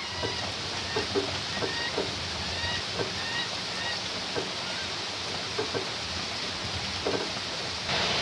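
Steady rain falling, with hens giving short high calls every second or so and a few light knocks. The rain grows louder near the end.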